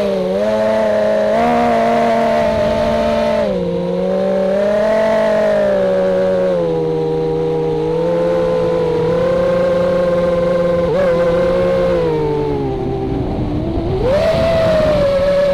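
Racing quadcopter's brushless motors and propellers whining in flight, the pitch rising and falling with the throttle, dipping low and then climbing sharply near the end.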